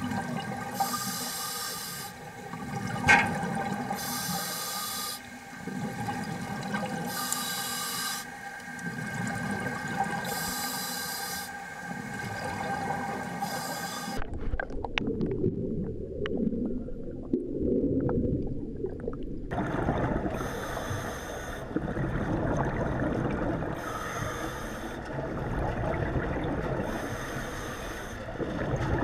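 Underwater recording of a diver's breathing: exhaled bubbles from the regulator rush out in regular bursts every two seconds or so, over a steady hum. About halfway through the sound changes to a deeper rumble, and the bubble bursts come back a few seconds later.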